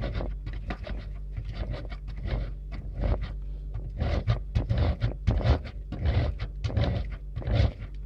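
A bar of Sarma stain-removing laundry soap being rubbed up and down the fine side of a metal box grater into a plastic bowl. Rhythmic rasping strokes, about two to three a second.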